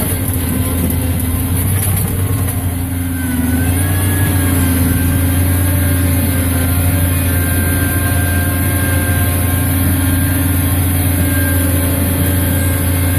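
Cub Cadet 2182 garden tractor engine running steadily while pushing snow with its front blade, heard from the seat inside its cab. Its pitch dips briefly and recovers about three seconds in.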